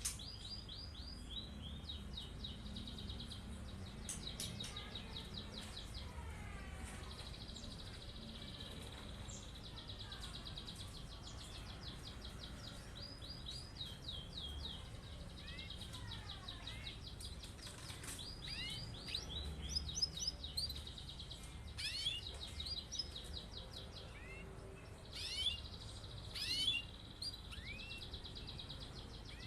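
Domestic canary singing long rolling trills, runs of very rapid repeated notes lasting a few seconds each, with louder sweeping chirps breaking in during the second half.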